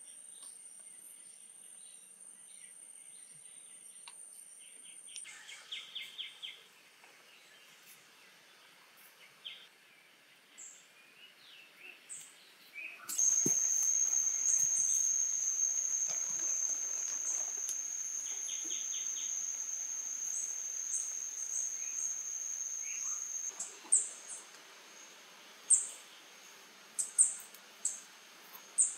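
Forest ambience: a steady high-pitched insect drone that grows louder about a third of the way in and cuts off abruptly late on. It is followed by a string of short, sharp bird chirps near the end.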